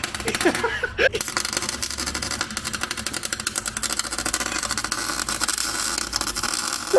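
Welding arc crackling steadily with a fast, dense sputter while the differential gears are welded solid.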